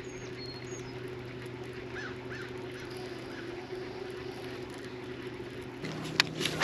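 A steady low electric hum with several even pitched tones, typical of a bass boat's trolling motor, with a few faint bird calls about two seconds in. Two sharp clicks come near the end.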